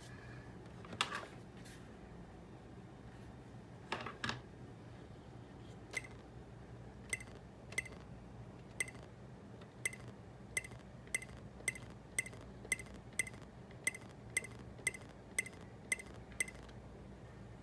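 Clicks from an FX Audio D802C Pro digital amplifier under a pop test: two broader clicks about one and four seconds in, then a run of short, sharp ticks that come closer together, to about two a second, and stop about a second before the end. A faint steady low hum lies underneath.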